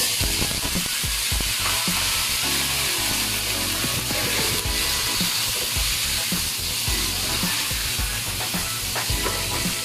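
Tomato wedges frying in hot oil and garlic in a nonstick pan: a dense sizzle that starts suddenly as they go in and holds steady, with a spatula stirring them.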